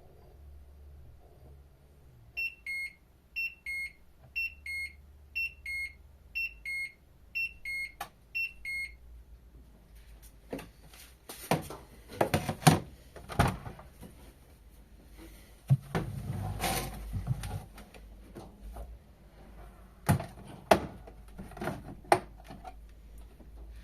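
LG washing machine's end-of-cycle signal: a two-note falling beep repeated about seven times, once a second. It is followed by a run of irregular clicks and knocks, the loudest about halfway through.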